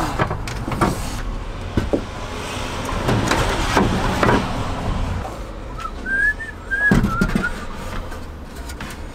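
Wooden bed slats knocking and clattering as they are set down on a timber bed frame, a few separate knocks. A passing vehicle hisses in the middle, and a bird chirps a few short notes about six seconds in.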